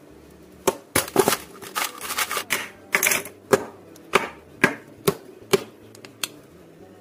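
Glass and plastic skincare bottles and a tube being set down and tapped on a tabletop: a quick, uneven series of about a dozen sharp clacks and knocks that stops a little after six seconds, the last a plastic tube cap being opened.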